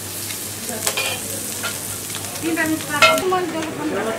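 Egg bara (lentil patties topped with egg) sizzling on a hot griddle, with scattered metal clinks and a sharp clink about three seconds in.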